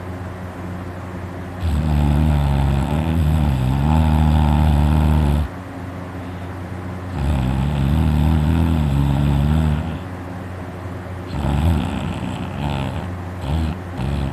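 A person snoring loudly. There are two long snores of about four and three seconds, rough and wavering in pitch, then a few shorter broken snores near the end, over a steady low hum. The sleeper puts the snoring down to his uvula vibrating.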